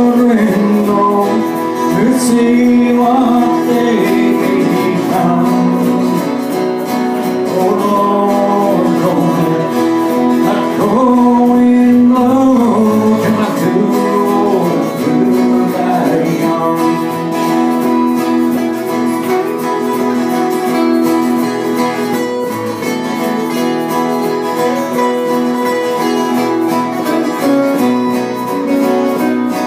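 Several acoustic guitars playing together live, strummed chords under a picked melody line.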